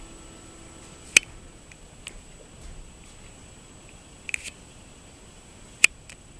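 A held musical note fades out about a second in. After it come a few isolated sharp clicks or taps over a faint steady hiss and a thin high whine; the two loudest clicks fall about a second in and near the end.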